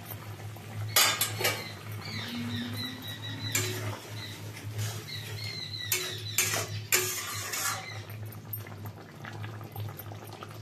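A metal spatula stirring pointed gourds through gravy in a metal kadai, scraping and knocking against the pan several times.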